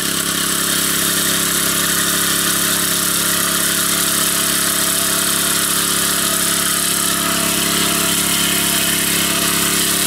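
A small engine running steadily at a constant speed, loud and close, with no change in pitch.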